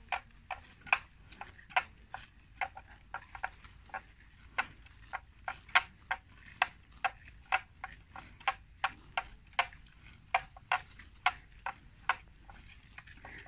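Sharp clicks repeating irregularly, about two to three a second, stopping shortly before the end.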